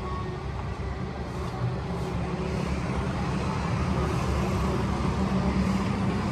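Steady street traffic noise with a continuous low engine rumble from motorbikes on the road.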